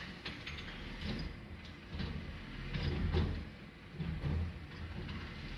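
Rear-loader garbage truck running while its bin lifter holds a large wheelie bin tipped over the hopper, with rubbish tumbling out and several dull knocks and thumps over a low engine hum.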